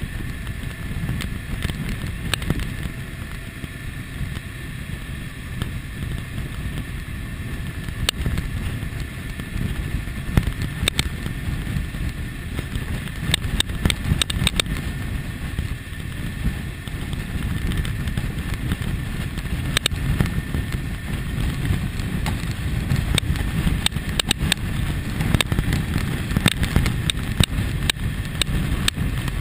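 Riding sound of a 2001 Kawasaki ZX-6R's inline-four at steady road speed, with heavy wind rush on the camera microphone and sharp crackles now and then.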